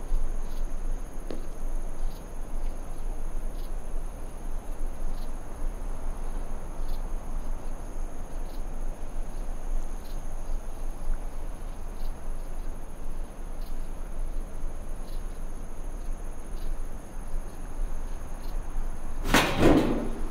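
Steady low background rumble with faint high ticks roughly once a second. Near the end, a metal-framed door is pushed open with a loud, brief scrape.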